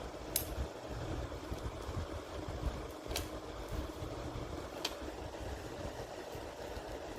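Three short sharp clicks, the second about three seconds after the first and the third a second and a half later, over a steady low rumble of background noise.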